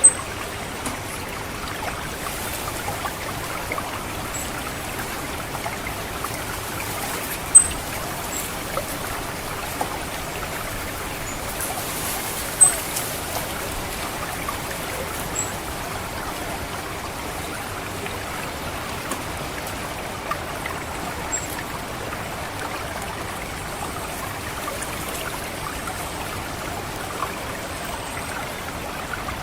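Water trickling steadily through a rice paddy, with short, high 'cit' call notes of an orange-headed thrush every few seconds; three of the notes are much louder.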